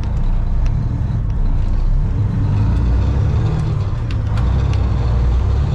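A truck driving off, its engine and road noise as a steady low rumble.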